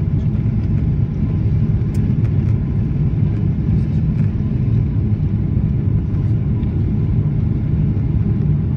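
Steady low rumble of a Boeing 777's engines and rushing airflow, heard inside the passenger cabin during descent on approach.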